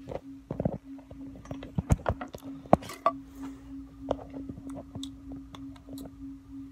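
Handling noise from a phone being moved and set down: a string of short knocks, clicks and rubs, loudest about two and three seconds in, over a steady low hum.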